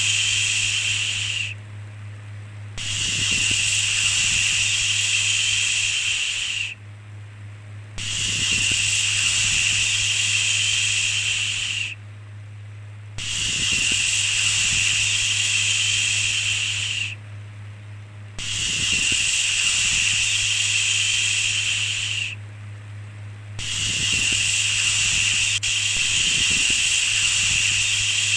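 A long 'shhh' shushing sound, repeated about every five seconds: each shush lasts about four seconds, with a short pause between. A steady low hum runs underneath.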